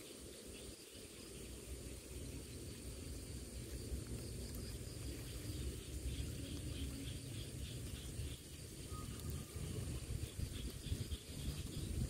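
Insects keep up a steady high-pitched trill, joined about halfway by a pulsing chirp, over an uneven low rumble of wind on the microphone.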